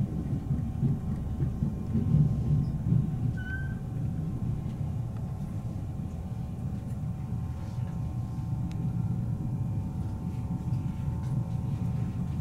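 Passenger train rolling slowly into a station, heard from inside the car: a steady low running rumble with a faint steady whine above it, and one short high squeal about three and a half seconds in.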